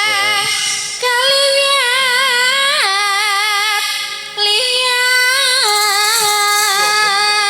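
A sinden, a female Javanese singer, singing long held notes with a wide, even vibrato. The line pauses briefly about a second in and again about four seconds in.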